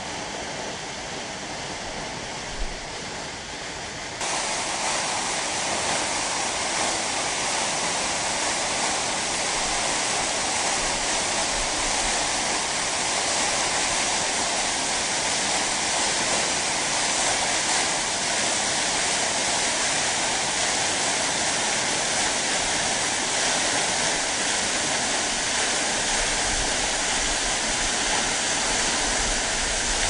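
Waterfall: a steady rush of falling water, growing suddenly louder about four seconds in.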